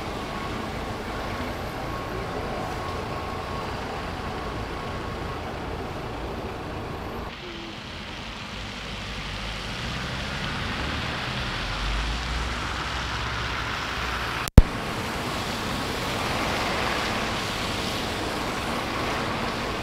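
SOR NB city buses, which run on compressed natural gas, pulling away and driving along a snowy street, mixed with city traffic noise. A lower engine rumble swells about two-thirds of the way through, and there is a single sharp click soon after.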